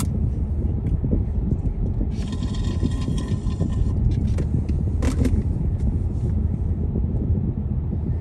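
Road noise inside a moving car: a steady low rumble of tyres and engine. About two seconds in, a higher sound made of several steady tones lasts under two seconds, and a short click comes about five seconds in.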